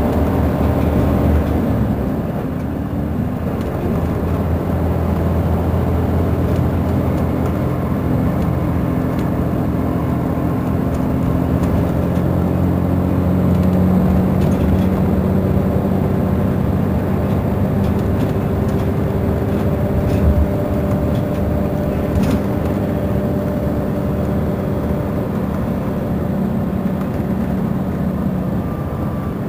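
Mercedes-Benz Intouro bus's Euro 4 diesel engine running under way, a steady drone whose note strengthens around the middle and then eases, with a couple of knocks in the second half.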